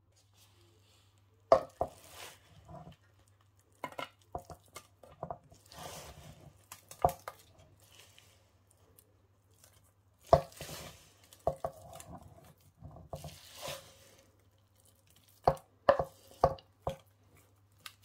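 Wooden spoon scraping and knocking in a stone-coated pan and against a lined cake tin as a sticky chocolate-biscuit mixture is scooped and pressed: irregular sharp taps with scraping and squelching between them. A faint low hum runs underneath.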